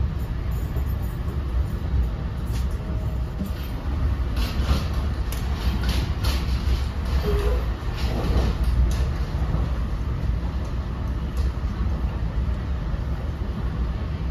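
Inside an NJ Transit Multilevel passenger coach at speed: a steady low rumble of the wheels on the rails, with a run of clicks and knocks from about four to nine seconds in.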